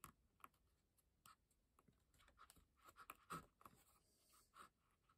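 Faint irregular clicks and scratches of a thin steel rod and small silver wire links being handled against a wooden block, with one louder click about two thirds of the way through.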